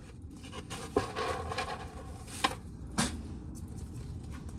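Dry ear corn being shelled: kernels scraping and rubbing off the cob, with a few sharp clicks of kernels striking.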